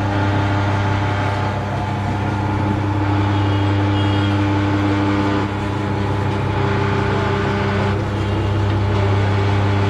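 Tyre-shop machinery running with a steady, deep mechanical hum while a motorcycle rear tyre is changed.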